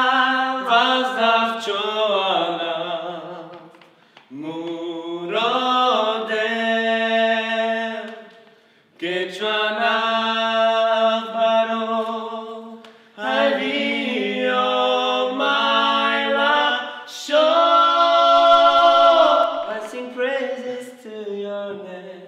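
A young man singing unaccompanied, in several long phrases of held, wavering notes with short breaks between them.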